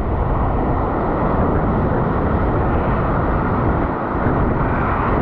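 Loud, steady rush of breaking surf and churning whitewater right at a camera held at water level, mixed with wind buffeting the microphone.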